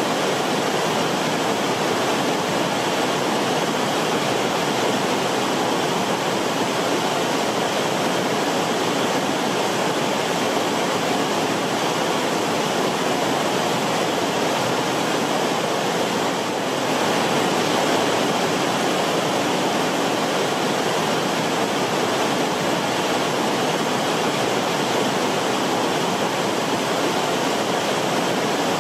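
Rushing river water: a steady, even wash of noise.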